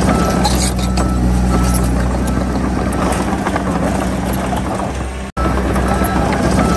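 Crawler bulldozer's diesel engine running steadily under load, with clinks and squeaks from the tracks as it pushes soil. The sound cuts out for a split second about five seconds in, then carries on.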